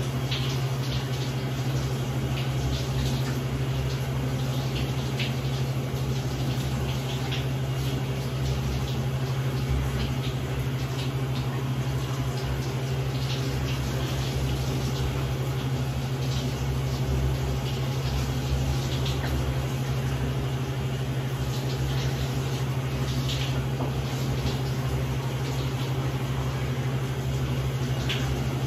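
Shower running steadily in a small tiled bathroom: a constant hiss of falling water with a steady low hum underneath and scattered faint ticks.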